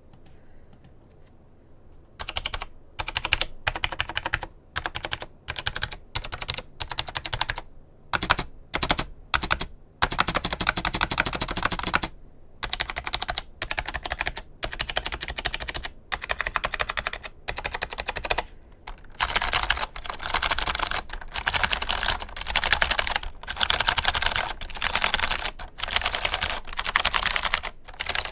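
Typing on a mechanical keyboard fitted with clicky switches, fast runs of sharp key clicks. It starts after about two seconds of quiet, comes in short bursts with brief pauses, and is near-continuous near the end.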